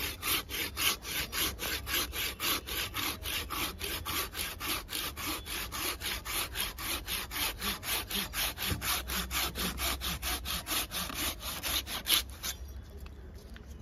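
Hand pruning saw cutting through a thick live branch of a Celtis australis (hackberry) bonsai: rapid, even back-and-forth strokes, about four a second, rasping through the wood. The sawing stops near the end as the branch is cut through.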